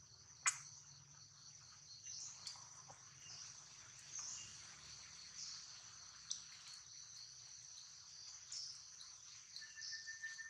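A steady high-pitched chorus of insects, swelling slightly now and then, with a single sharp click about half a second in. A second, lower steady trill joins near the end.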